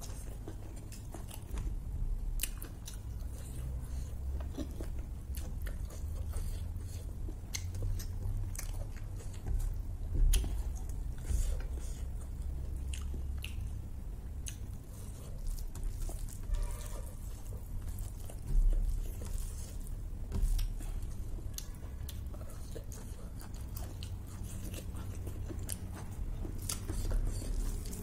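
A person chewing and biting beef curry and rice close to the microphone: a steady run of short, sharp mouth clicks, with a few louder bites scattered through.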